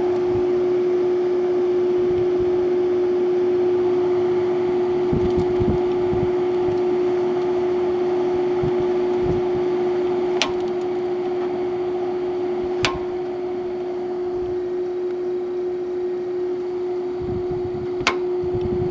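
Haier HWF05XCA 5,000 BTU window air conditioner running its blower fan with the compressor cycled off: a steady high-pitched hum over the rush of air. Three sharp clicks come partway through, and it runs a little quieter after the second.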